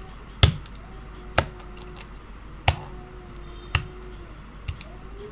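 Metallic slime being squeezed and slapped by hand, giving five sharp snapping pops about a second apart, the last one softer.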